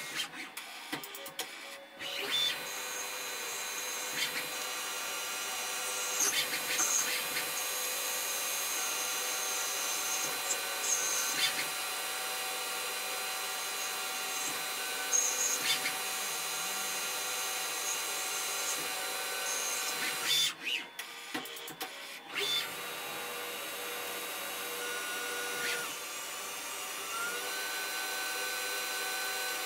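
Tormach CNC lathe cutting bar stock under coolant: a steady spindle whine mixed with cutting noise. It drops away briefly near the start and again about twenty-one seconds in, between cuts, and a tone rises in pitch near the end as the spindle speeds up.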